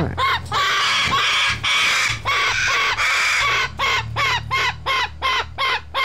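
Cockatoos calling over and over: harsh screeches partway through, then a quick series of short calls about three a second. These are alarm calls, which the keeper puts down to a hawk overhead.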